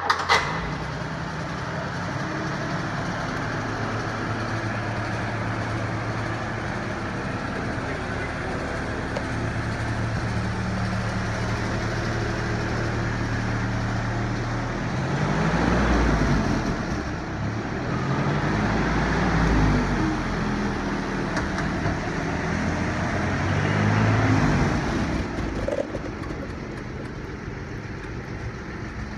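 1954 Rolls-Royce Silver Dawn's straight-six engine starting up, then idling steadily. It is revved three times in the second half, each rev rising and falling, before dropping back to idle.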